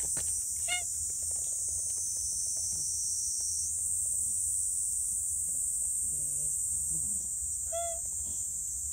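Small calico cat giving short, high meows while being stroked, about a second in and again near the end, pleased at the petting. A steady high insect buzz runs behind.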